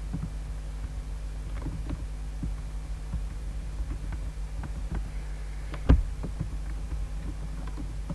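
Steady low electrical hum with scattered light clicks from a computer mouse and keyboard at work, and one louder knock about six seconds in.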